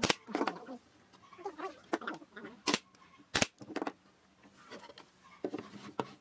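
A brad nailer firing nails into pine boards: sharp shots, one at the start and two more close together about two and a half and three and a half seconds in. Poultry calling in between.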